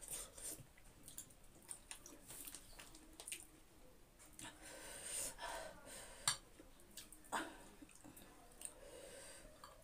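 Close-miked eating sounds: chewing, lip smacks and soft wet clicks as fried food is picked up and eaten by hand. The clicks are scattered and irregular, with a sharper one about six seconds in and another about seven seconds in.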